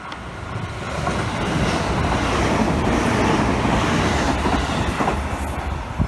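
JR E653 series electric limited express train running through the station at speed: wheel and rail noise swelling to a peak in the middle as it goes by, then easing off.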